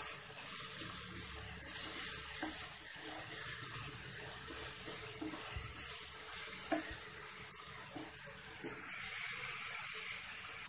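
Shredded carrots, almonds and raisins sizzling in oil and sugar in a nonstick frying pan, a steady high hiss, stirred with a wooden spatula that gives a few light scrapes and taps against the pan.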